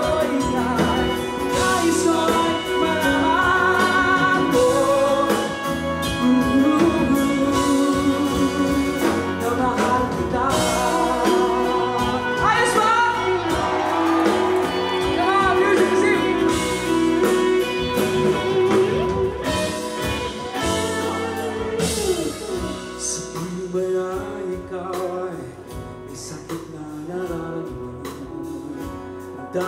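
Live band music with guitars and drums, with singing over it. The music gets quieter for the last few seconds.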